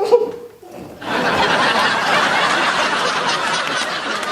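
Crowd laughter, many people laughing together, begins about a second in and keeps up steadily. It follows the brief tail of a voice at the very start.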